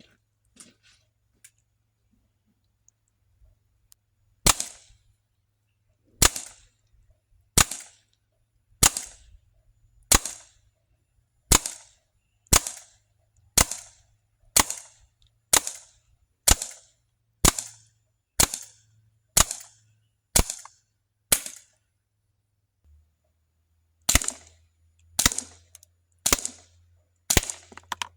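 CZ SP-01 Shadow CO2 airsoft pistol firing single shots, about one a second: sharp pops, a run of around sixteen, a short pause, then several more. A few faint clicks come first. It is a non-blowback gun, so there is no slide clatter between shots.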